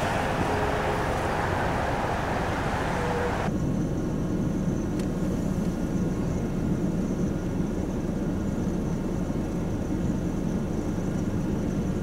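Blizzard wind blowing hard across the microphone: a steady rushing noise that changes abruptly about three and a half seconds in to a deeper, low wind rumble.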